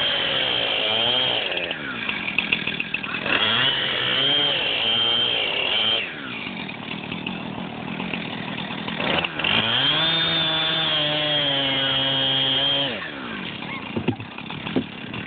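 Chainsaw cutting down into pond ice, revving to full throttle three times, the longest burst about three seconds and past the middle, and dropping back to idle between bursts and near the end.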